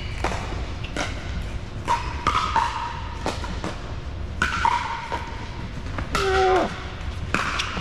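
Pickleball paddles hitting plastic balls during rallies: a string of sharp hollow pops, several with a short ringing tone, echoing in a large indoor court hall. A brief loud squeal that bends downward comes about six seconds in.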